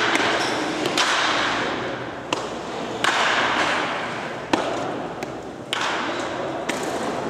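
Baseballs smacking into a catcher's mitt or off his gear in a catching drill: a few sharp thuds a second or two apart. Under them is a hiss that starts suddenly and fades, several times over.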